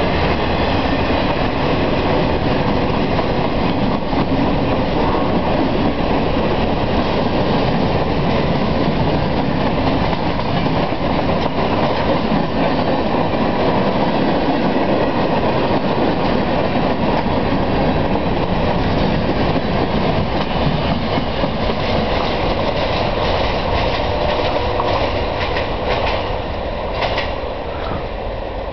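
Freight train rolling past: a steady rumble of rail cars with clicking wheels over the rail joints, easing off slightly near the end.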